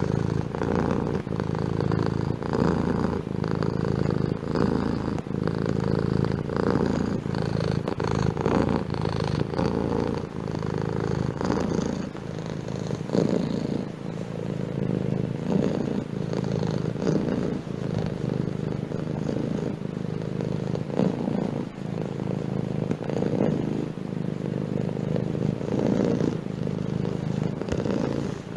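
Domestic cat purring steadily and close up, with an even rise and fall as it breathes in and out.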